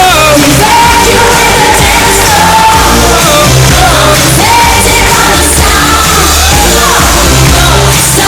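Live dance-pop song played loud through a PA, a steady pulsing synth bass under a woman's sung melody that glides between notes.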